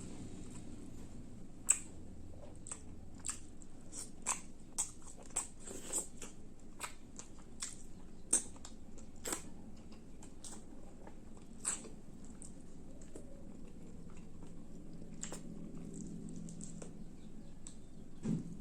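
Close-up eating sounds of a person chewing spicy fish roast with rice: irregular wet mouth clicks and smacks, sharper and louder near the start and fading to fewer toward the end.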